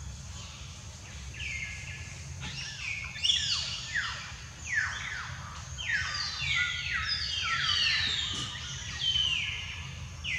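Birds calling: many high chirps, each sliding quickly downward in pitch, overlapping and densest in the middle, over a steady low hum.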